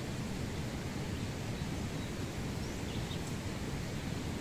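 Steady low outdoor background noise, with a few faint, short, high bird chirps about three seconds in.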